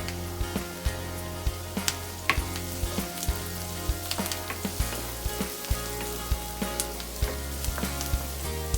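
Minced garlic and onion sizzling in hot sesame oil in a pan, with a spatula clicking and scraping against the pan about twice a second as they are stirred.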